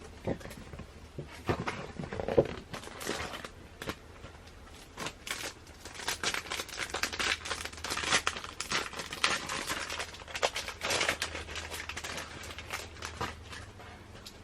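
Packaging crinkling and rustling in irregular handfuls as items are unwrapped and handled, busiest in the middle.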